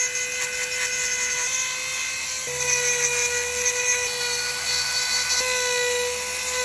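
Flexible-shaft rotary tool whining steadily as its small bit grinds detail into cedar, the pitch stepping slightly a few times as the bit takes load.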